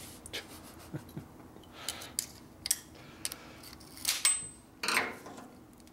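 Light metallic clicks and taps as spring clips are worked onto a Harley shovelhead's pushrod tube covers with a screwdriver: about seven sharp ticks at irregular intervals, the loudest a little past four seconds, then a short rustle near five seconds.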